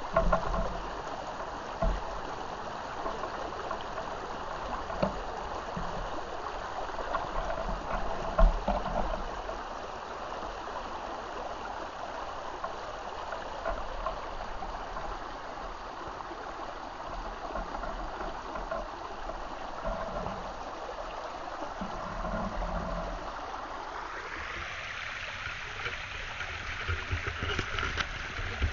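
A small stream flowing and burbling over stones. About two thirds of the way through, the water noise turns brighter and more rushing, with a few low knocks near the start and middle.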